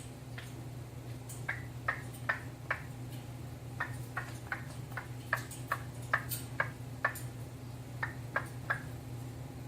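Orange-winged Amazon parrot making short sharp clicks in runs of about two to three a second, with brief pauses between the runs.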